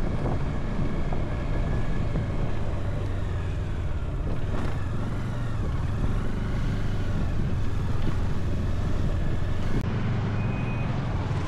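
Bajaj Dominar 400 motorcycle's single-cylinder engine running at a steady speed on the move, with wind and road noise.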